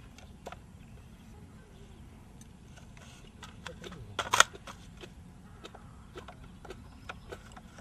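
Scattered sharp metallic clicks of rifle cartridges and magazines being handled, with a loud metal clack about four seconds in as the rifle is handled.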